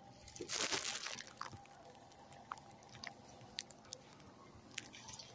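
Rustling and crackling as rice plants brush against the phone: a loud burst of rustle about half a second in, then scattered light clicks and crackles.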